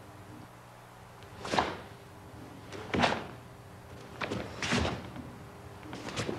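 Karate techniques performed barehanded on a mat: five sharp slaps and thuds, spread about a second apart, from strikes, blocks and stamping footwork, over a low steady hum.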